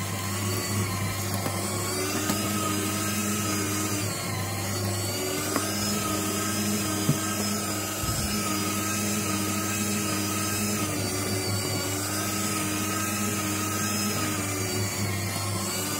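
Electric shredder motor running steadily as ribbon cable is fed through it, its hum wavering slightly in pitch under the load, with a couple of light clicks.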